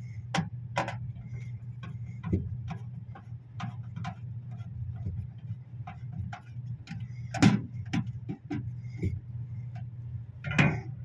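Irregular clicks and knocks of parts and tools being handled during a refrigerator repair, with louder knocks at about seven and a half and ten and a half seconds, over a steady low hum.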